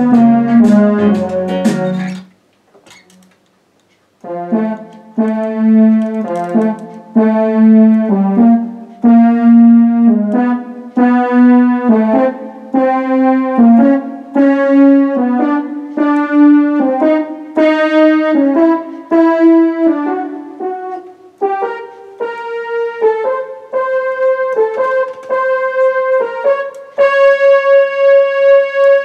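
Electronic arranger keyboard playing a blues piece: a phrase ends about two seconds in, a short pause, then a line of notes whose lowest part climbs step by step in pitch, ending on a long held note.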